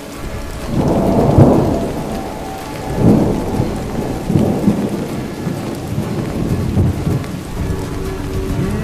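Steady rain with rolling thunder. Deep rumbles swell about a second in, again around three seconds, and a few more times after.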